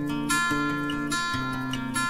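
Background music: acoustic guitar playing a gentle piece, moving through a few plucked notes and strummed chords.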